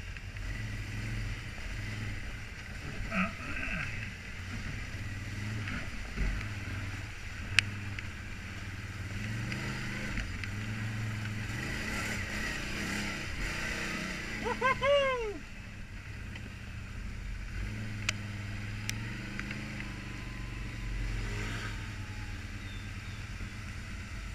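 Can-Am Outlander ATV engine running at low trail speed, its pitch rising and falling a little with the throttle. A short falling squeal sounds briefly a little past halfway.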